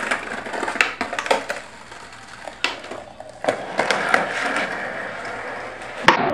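Skateboard wheels rolling over brick pavers and concrete, broken by several sharp clacks of the board snapping and landing during flatground tricks.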